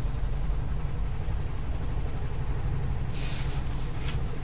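Washing machine on its spin cycle, a steady low rumble throughout. About three seconds in, a brief scratchy rustle as a sheet of paper is slid round on a table.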